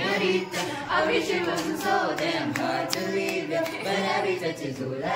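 A group of young men and women singing together in chorus.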